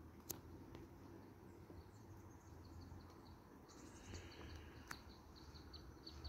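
Near silence outdoors, with faint high chirps repeating about four times a second from a couple of seconds in, and a few faint clicks.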